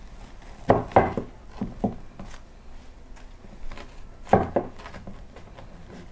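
Large machete chopping through a lavash-wrapped lula kebab and knocking on the wooden tabletop. There is a cluster of sharp knocks about a second in, then another pair about four and a half seconds in.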